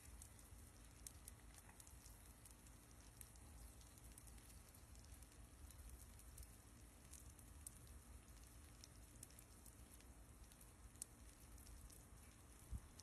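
Near silence: a faint low rumble with scattered faint ticks and crackles.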